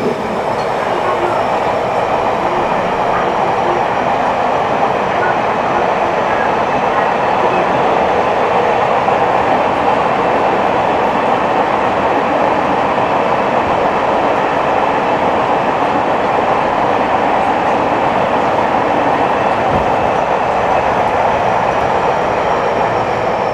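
Cabin running noise of a Nagoya Municipal Subway 3050-series train travelling between stations: a loud, steady rumble of wheels on rail and running gear, with a faint high whine above it.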